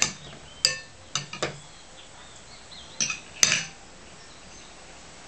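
Steel knife and fork clinking and scraping against a plate while cutting grilled beef. There are several sharp clinks, some with a short ring, in the first second and a half, then a last cluster about three seconds in.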